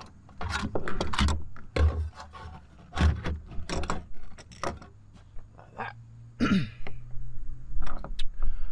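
Handling noises in a car's interior: a run of irregular clicks, knocks and rattles, with a heavier thump and scrape about six and a half seconds in.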